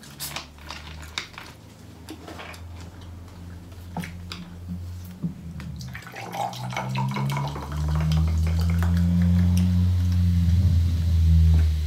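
Close-miked eating of a seafood boil: wet chewing and smacking on shrimp and lobster, with scattered clicks. About six seconds in, the liquid sounds of drinking grape soda from the bottle take over, with a louder low rumble of swallowing for the last few seconds.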